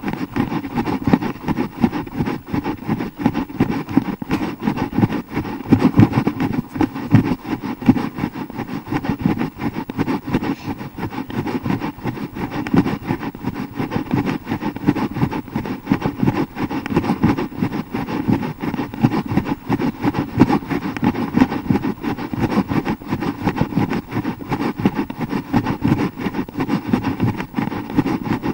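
Wind and handling rumble on a hand-held action camera's microphone while running: a steady, uneven rumble with many quick jolts in loudness.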